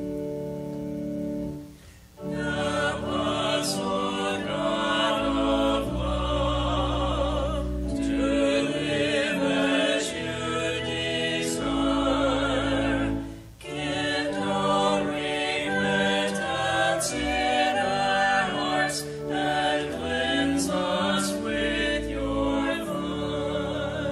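Church organ holds a chord, then a small mixed choir sings a hymn verse over sustained organ accompaniment, in two phrases with a short breath between them about halfway through.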